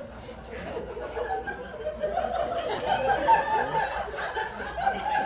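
A small group of people laughing and chuckling, with voices talking over one another.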